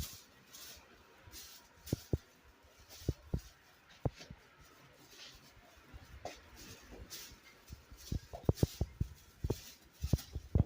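Scattered soft knocks and rustling, with a quicker run of knocks about eight to nine seconds in.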